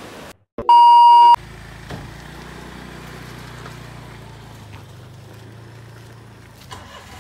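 A loud electronic beep, one steady tone lasting under a second, followed by a vehicle engine idling with a low steady hum.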